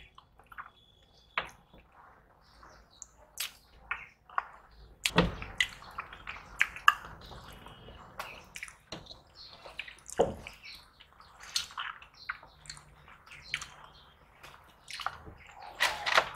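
Close-miked hand-eating: wet chewing and lip smacks, with squelching as rice and fish curry are mashed and mixed by hand. The sounds come as irregular short clicks and smacks, a few of them louder.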